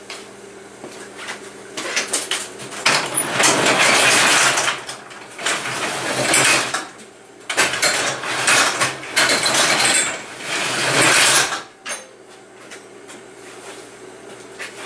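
Garage door being pulled shut: a loud, noisy mechanical run that starts about two seconds in, swells and dips several times, and stops suddenly near twelve seconds in.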